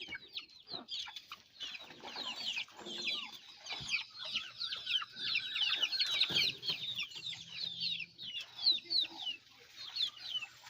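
A flock of chickens calling together: a dense, continuous chorus of many short, high-pitched chirps overlapping one another.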